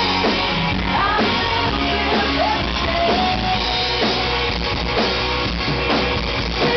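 A live rock band playing loudly: drum kit, electric and acoustic guitars, with a woman's voice singing the melody over them.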